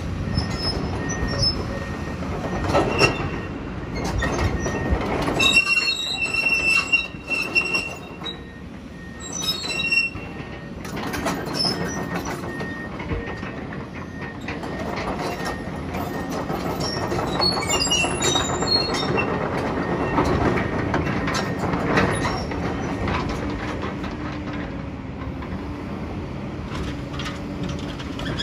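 Komatsu excavator running while its demolition grapple crushes and tears sheet-metal roofing and walls: a steady engine rumble with crunching and scraping, loud crashes about 3 s and 22 s in, and short metal squeals around 6 s and 18 s in.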